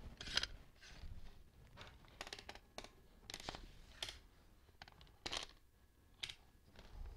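One-handed bar clamp used as a spreader between chair legs, its trigger handle squeezed again and again: a string of short, irregular ratcheting clicks as the jaws push the legs apart.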